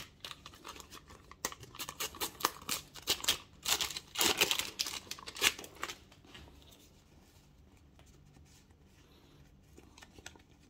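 A paper sticker packet being torn open and crinkled by hand: a quick run of rips and crackles from about a second and a half in, loudest around four to five seconds, then fading to faint rustling of the stickers being handled.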